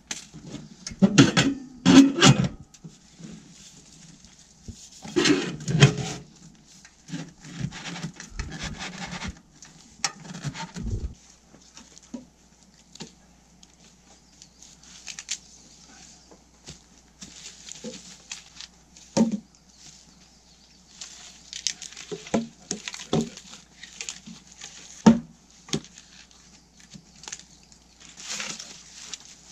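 Irregular knocks, taps and rustling of objects being handled, with louder clattering near the start and again about five seconds in, then scattered sharp taps.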